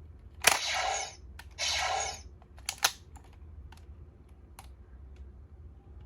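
Plastic clicks from handling and pressing the buttons of an Ultra Replica Orb Ring toy. Two short bursts of electronic sound effects come from its small speaker, about a second in and again about two seconds in.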